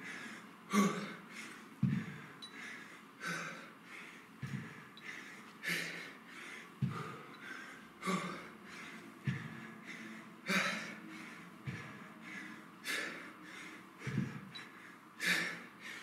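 A man breathing hard and forcefully through heavy kettlebell high pulls, one sharp breath every second or so in time with his reps.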